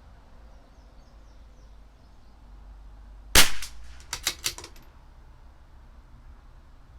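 A single shot from a CZ 457 LRP bolt-action .22 LR rifle about three and a half seconds in, followed within a second by a quick run of four or five sharp metallic clicks as the bolt is worked to chamber the next round.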